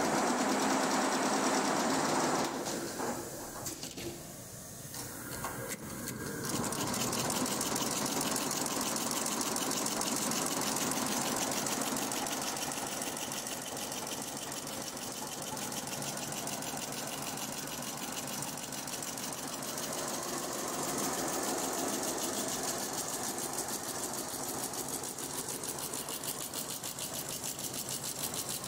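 Shengming multi-head sequin embroidery machine stitching at speed: a fast, steady, even needle clatter. It is louder for the first couple of seconds, drops back about two and a half seconds in, and picks up again to a steady run around six seconds in.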